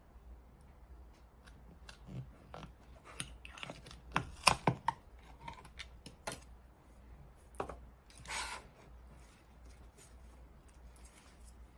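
Small handling sounds from taking apart a handheld scan tool's plastic housing: scattered clicks and taps, a quick cluster of sharp snaps about four to five seconds in, and a short scrape a little after eight seconds.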